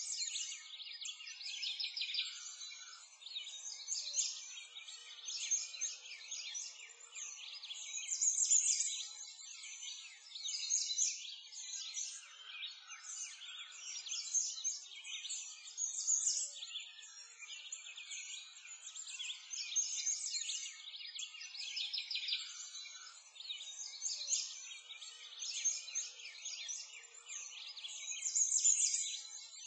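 A dense chorus of small birds chirping and twittering without pause. The sound is thin and high, with almost no low end.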